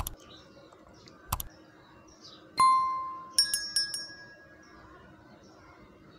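A couple of light clicks, then about two and a half seconds in a sharp metallic knock that rings briefly, followed by a quick run of clinks with higher ringing: metal ceiling fan blade and fittings knocking together as they are handled during blade fitting.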